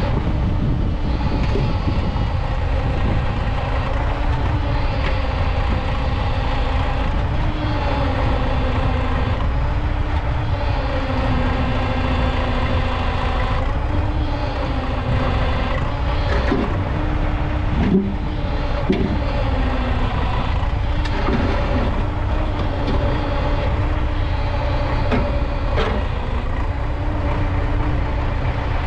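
JUMZ EO-2621 tractor excavator's diesel engine running steadily under working load, its pitch dipping and rising as the hydraulics work. A few short knocks come through from about the middle on.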